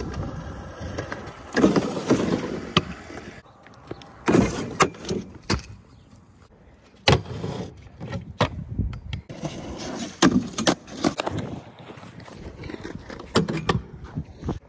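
Stunt scooter riding on concrete: the small wheels roll with a rough hum, broken by sharp clacks and knocks at irregular intervals as the deck and wheels land and grind on a metal rail and a wooden box.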